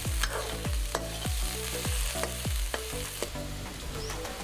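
Metal ladle scraping and knocking against a kadai about two to three times a second, ringing briefly with each stroke, over the sizzle of chopped onion, garlic, chilli and capsicum frying in oil. The strokes stop about three seconds in, leaving a quieter hiss.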